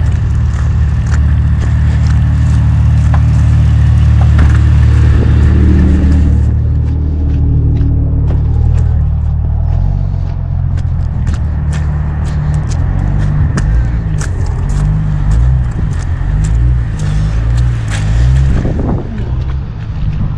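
A vehicle engine running at idle, low and steady, with its pitch wavering in the second half. Short clicks and scraping handling noises sound over it.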